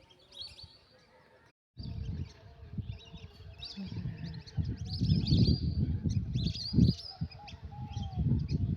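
Birds chirping, with a few lower calls, over an uneven low rumbling noise.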